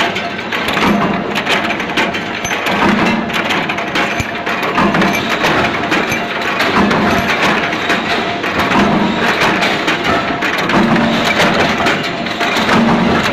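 Bolt-making machinery running: a bolt forming press and a thread-rolling machine. They make a loud, continuous metallic clatter of rapid knocks, with a low pulse repeating about every two seconds.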